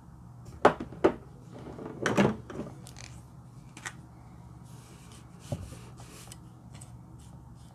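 Plastic makeup tubes and a marker pen being handled and capped: two sharp clicks about a second in, a brief scraping rattle, a smaller click, then a dull knock about halfway through and faint scratchy sounds of a pen tip working the slime.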